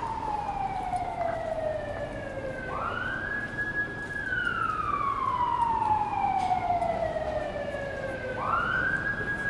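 Emergency vehicle siren in wail mode: the pitch climbs quickly, holds briefly at the top, then slides slowly down over about four seconds. It rises again about three seconds in and once more near the end, over steady city background noise.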